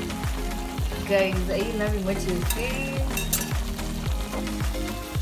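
Background music with a steady beat of deep drum hits, about two a second, over a faint sizzle from meatballs simmering in tomato sauce in a steel pot.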